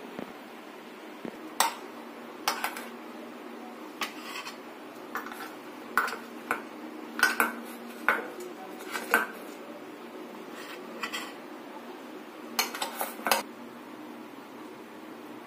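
Metal spoon clinking and scraping against aluminium idli-stand plates as steamed idlis are scooped out of the moulds, with the plates knocking together. The clinks come irregularly, with a quick run of them about thirteen seconds in, over a steady low hum.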